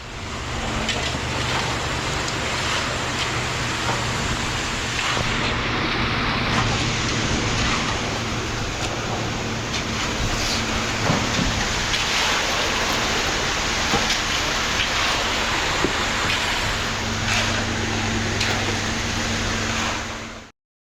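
Ready-mix concrete truck's diesel engine running steadily while the drum turns to discharge concrete, under a constant rushing noise with scattered small knocks.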